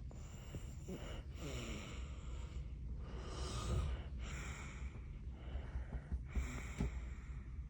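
Baby snoring loudly in sleep, with rough, noisy breaths coming about every second.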